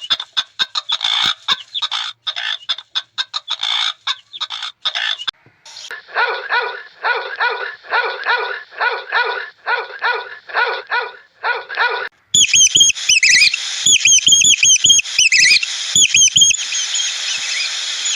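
Animal calls, three different animals in turn: first a fast chattering of short notes, then a run of short repeated calls about three a second, then high chirping notes.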